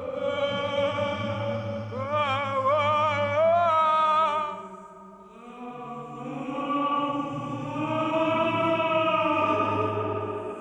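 Operatic film-score music: a high wordless voice holding long notes with a wide vibrato over a choir and low sustained accompaniment, dipping quieter about halfway through and then swelling again.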